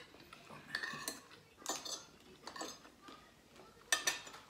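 Metal spoon and fork scraping and clinking against ceramic plates during a meal: a few short clinks and scrapes, the sharpest about four seconds in.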